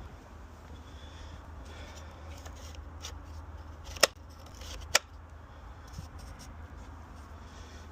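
Light scraping and handling noises with two sharp clicks about four and five seconds in and a fainter one shortly after, over a steady low hum.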